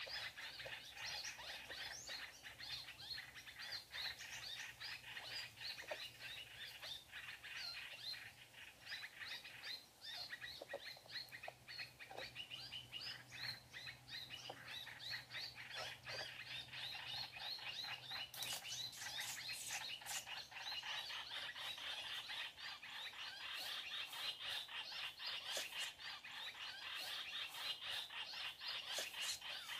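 Small songbirds chirping continuously, a dense run of short high calls, with a few sharp clicks about two-thirds of the way through.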